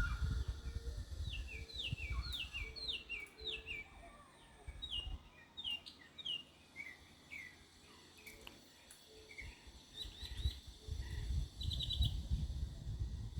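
Birds chirping: a run of short, quick, falling chirps repeated for several seconds, then sparser calls and a fast group of four near the end. A low rumble on the microphone is heard at the start and again near the end.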